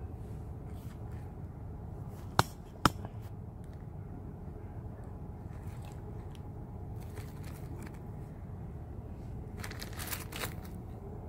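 Hands sorting through costume jewelry in plastic zip bags: plastic rustling and beads and chains clinking. Two sharp clicks about half a second apart come a little over two seconds in, and a thicker rustle comes near the end.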